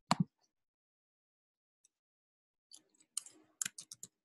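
Computer keyboard typing: after a quiet stretch of about two and a half seconds, a quick run of keystrokes over the last second and a half.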